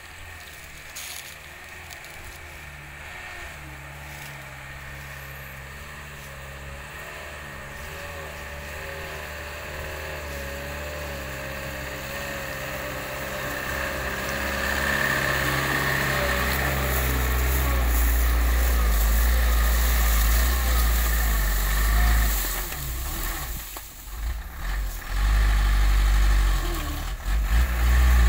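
Engine of a Mitsubishi light truck loaded with sugarcane, running and getting steadily louder as it drives closer. Near the end it revs in uneven surges.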